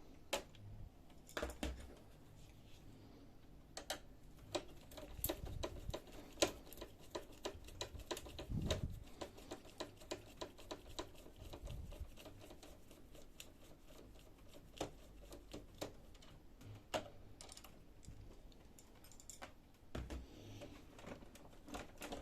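Irregular small clicks and taps of a screwdriver undoing the screws that hold the fuser unit in a Brother DCP-7055-series laser printer, with a few dull knocks from handling the printer's frame.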